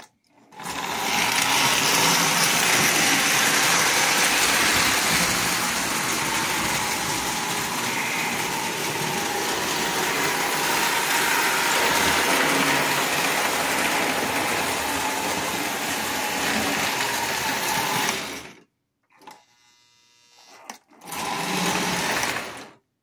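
Lionel postwar 671 model steam locomotive running on the layout track: the motor and wheels make a steady, loud whirring run that stops suddenly after about 18 seconds. A second short run follows near the end.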